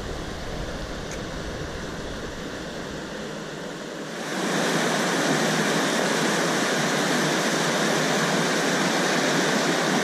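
Rushing water of a small rocky river: the steady rush of rapids and a small cascade, which gets louder and brighter about four seconds in.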